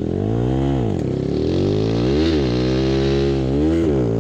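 Viar Cross X 200 trail bike's single-cylinder engine revving up and down under throttle, with short sharp blips about two seconds in and near the end.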